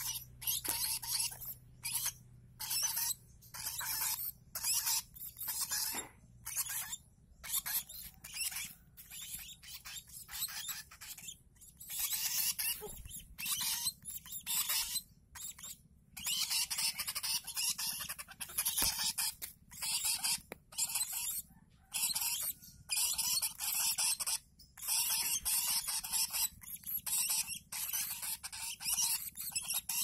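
Young lovebird chicks calling, a fast run of short, harsh, high-pitched chirps with brief pauses between them. These are the begging calls of chicks being fed by mouth.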